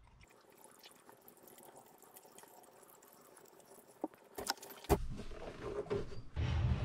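Motor oil pouring from a plastic quart bottle through a funnel into the engine's oil filler, faint and steady. About four seconds in come a few sharp knocks as the bottle is handled and taken away, then louder low rumbling noise near the end.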